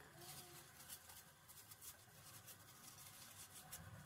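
Faint rustling and scratching of a cloth being rubbed over a small metal air-pistol part, in short irregular strokes.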